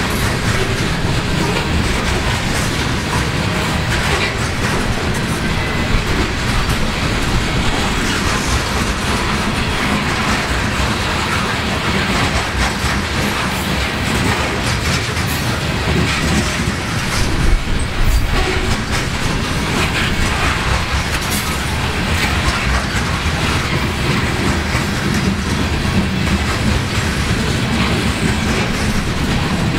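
Loaded coal hopper cars of a long freight train rolling past: a steady rumble of steel wheels on rail, with scattered clacks from the wheels.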